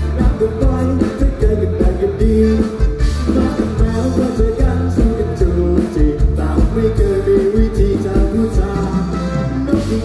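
Male singer singing live into a microphone over loud amplified music with a bass line and a steady beat, heard through the PA speakers.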